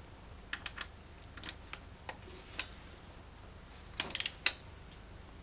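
Torque wrench set to 43 foot-pounds ratcheting and clicking on connecting-rod cap bolts: a few scattered light clicks, then a quick run of louder clicks about four seconds in.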